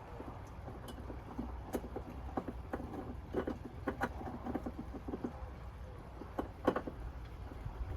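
Scattered clicks, taps and knocks of hand tools and metal mounting hardware being handled during the removal of a ceiling light fixture box, with one sharper knock near the end.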